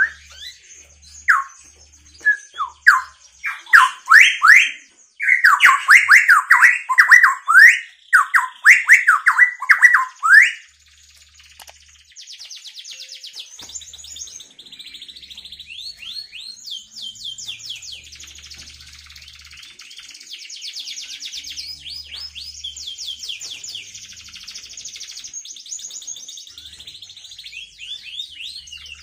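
Canary singing: loud, repeated rising and falling whistled sweeps for about the first ten seconds, then a long run of softer, rapid rolling trills.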